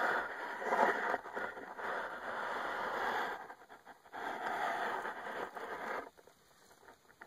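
A phone taped to a pole scraping and rubbing against the soil and roots of a sinkhole's walls, in rough stretches of noise that break off about halfway and again near the end.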